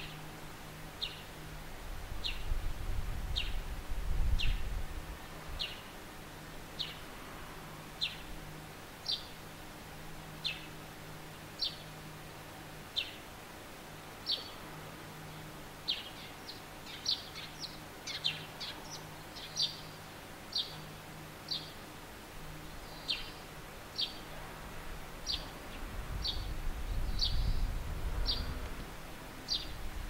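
Eurasian tree sparrow chirping: a steady series of short, falling chirps about one a second, quickening into a rapid flurry around the middle. A low rumble swells twice, a few seconds in and near the end.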